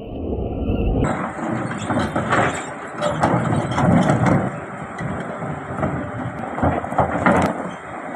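Excavator at work: its engine running under load with repeated clanks and knocks, probably the bucket and arm striking rock and soil. The sound changes abruptly about a second in, and the din drops off near the end.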